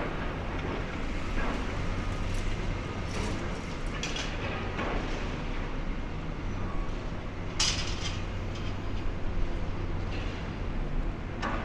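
High-reach demolition excavator working on a concrete tower: a steady low engine drone, with a series of short crunching crashes as its attachment breaks steel-reinforced concrete. The loudest crash comes about two-thirds of the way through.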